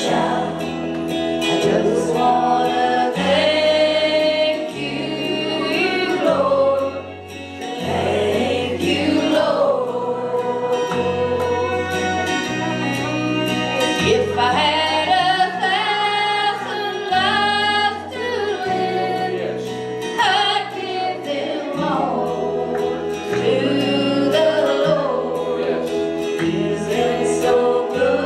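Gospel music: a woman singing solo into a handheld microphone over an instrumental accompaniment with a stepping bass line.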